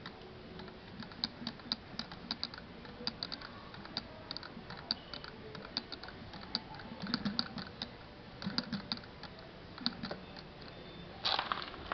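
Evolution 10cc gas model-aircraft engine being turned over by hand, giving a run of irregular light clicks and ticks with soft knocks. The engine sparks but will not start. A louder rustle near the end.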